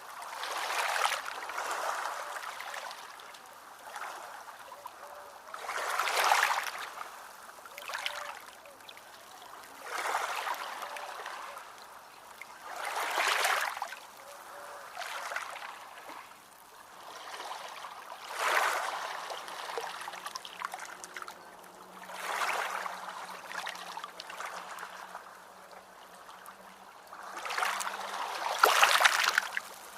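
Small ocean waves washing and splashing ashore in irregular surges a few seconds apart, the loudest near the end.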